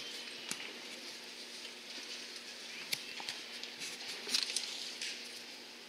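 Quiet audience noise in a large arena: faint rustling and a few small clicks and knocks over a low steady hum.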